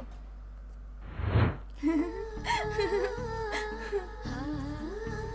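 A swelling whoosh about a second in, then a woman's voice humming a gliding tune over a soft, steady low beat.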